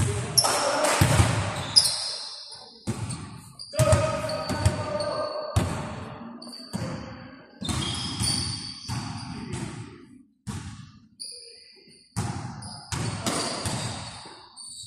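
A basketball bouncing and thudding on a gym's hardwood court, the impacts ringing through the hall, with sneakers squeaking in short high bursts now and then.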